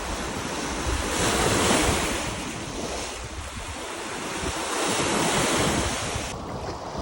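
Lake waves washing in, swelling twice, with wind buffeting the microphone.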